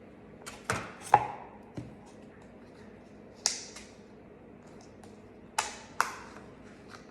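Close-miked sharp clicks and knocks from food, takeout containers and utensils being handled at a table, coming in short clusters, the loudest about a second in.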